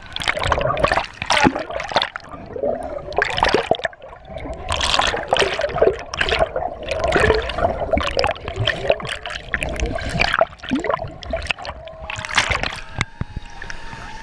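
Water splashing and sloshing in irregular bursts as a person moves through the pool below a waterfall.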